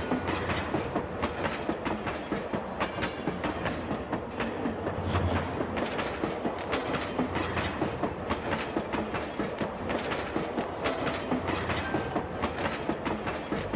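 Sound effect of a train running on rails: a steady, rapid clickety-clack.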